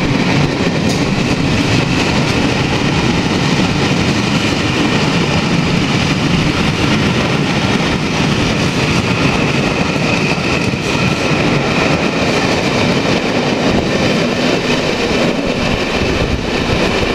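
Passenger coaches of a steam-hauled express rolling past on the rails: a loud, steady wheel-on-rail rumble with a thin high ringing running over it.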